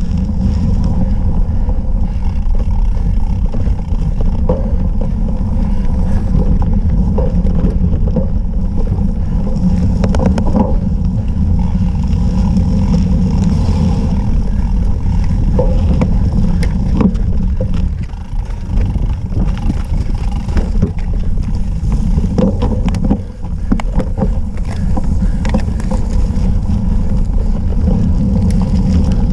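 Wind buffeting the microphone over the rumble of a cyclocross bike riding across rough grass and dirt, with scattered rattles and clicks from the bike over bumps.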